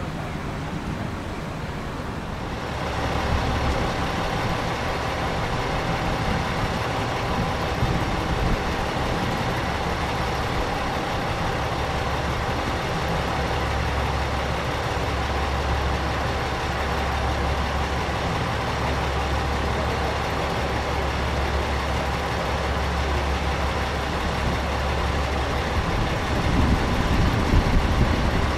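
JR East KiHa E130 series diesel railcar train approaching slowly, its diesel engines running with a steady low drone that grows louder near the end as it comes closer.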